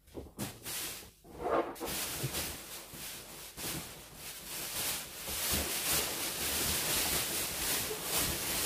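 Inflated latex balloons handled and gathered up, rubbing and bumping against each other: a continuous rustle with frequent soft knocks, starting about two seconds in.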